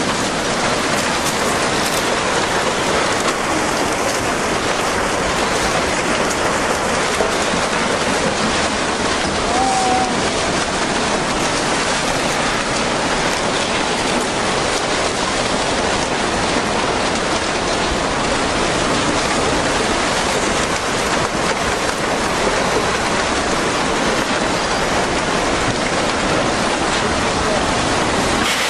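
Loud, steady rushing of water, an even hiss and roar that does not let up.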